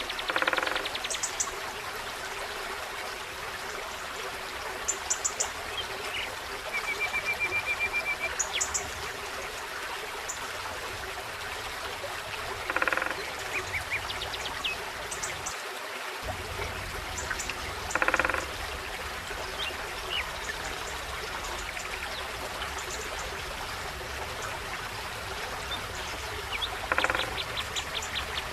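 A forest stream running steadily, with birds calling over it: scattered high thin chirps, a pulsed trill lasting about two seconds near the middle, and a short loud rattling call four times.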